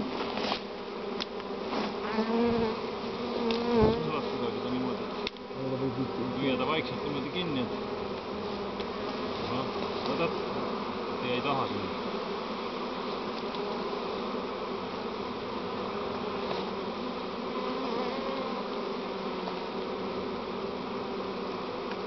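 Swarm of honeybees buzzing: a dense, steady hum of many bees. A few clicks and rustles come in the first few seconds as the branch is handled.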